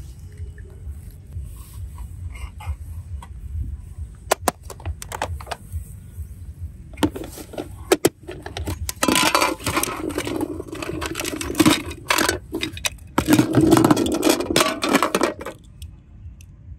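Toys and Orbeez water beads being handled in a plastic tub: a few sharp clicks, then several seconds of dense clattering and scraping of plastic and beads, including a plastic box of beads being pressed and shifted by hand, which stops shortly before the end.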